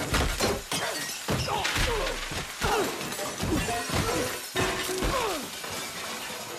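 Film sound effects of men and kitchen objects crashing: a loud crash at the start, then a rapid string of impacts, clattering and shattering of pots, pans and crockery, with ringing and sliding sounds between the hits.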